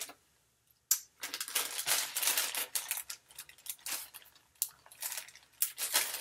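Small plastic items and packaging being handled: irregular light clicks and crinkling, with a sharp click about a second in.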